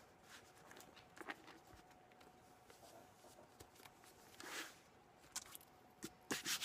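Faint handling sounds of hands pressing and rubbing a book and setting wooden skewers along its spine: a soft rub about four and a half seconds in and a few light clicks and taps, most of them near the end.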